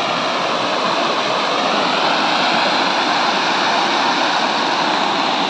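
Decorative fountain splashing steadily: a spiky dandelion-sphere jet and a ring of arcing jets falling into a round pool.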